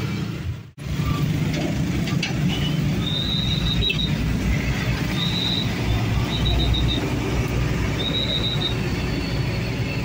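Road traffic in a jam: the steady rumble of idling and crawling truck and motorbike engines. Short high-pitched trills sound about five times from about three seconds in.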